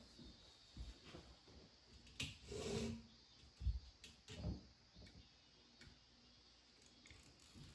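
Faint, scattered knocks and clicks with a few soft thumps, like objects being handled; the loudest moment is a short clatter a little over two seconds in.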